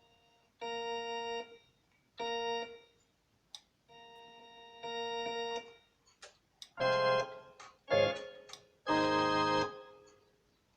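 Casio CTK-3500 keyboard playing its Rock Organ 2 preset: a few short held organ chords, then from about two-thirds of the way in louder, fuller chords with low bass notes added.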